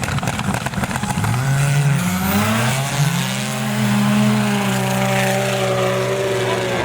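Snowmobile engine at full throttle in a drag run: the revs climb about a second in, dip briefly, then climb again and hold high and steady.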